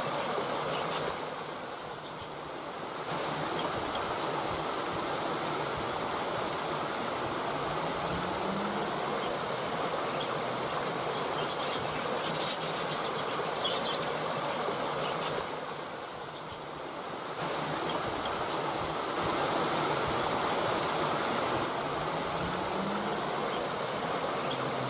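Waterfall water rushing steadily, its level dipping briefly about two seconds in and again past the middle, with a faint rising low tone twice.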